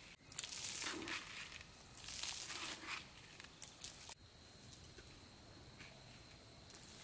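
Irregular bursts of crunching and rustling during the first four seconds, stopping abruptly; after that it is quieter, with a faint steady high-pitched tone.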